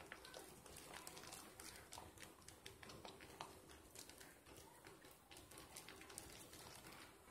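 Faint wet squishing and crackling of thick soap lather from bar-soap slivers being rubbed and squeezed between the hands, a quick irregular patter of small squelches and clicks.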